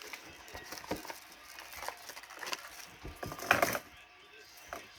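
Scattered light taps, clicks and rustles of small slime mix-ins (beads, crystals) being sprinkled and handled, with a louder rustle about three and a half seconds in.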